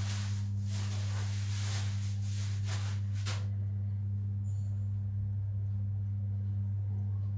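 A steady low hum, with a hiss and a few faint scrapes over it for the first three and a half seconds.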